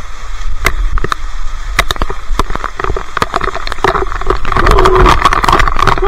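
Rapid, irregular knocks and crackles close to the microphone as a rappeller's shoes and gear strike the wet rock face beside a waterfall, over the steady rush of falling water.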